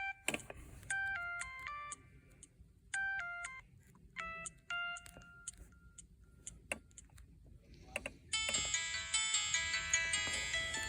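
Samsung SGH-F480 mobile phone playing ringtones: short runs of electronic beeping notes stepping up and down in pitch, with sharp clicks between them. About eight seconds in, a fuller, busier ringtone with many notes at once starts and keeps playing.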